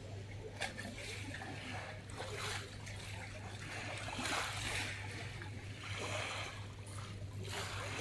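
Small waves lapping onto a pebble beach, gentle washes swelling and fading every second or two, over a steady low hum.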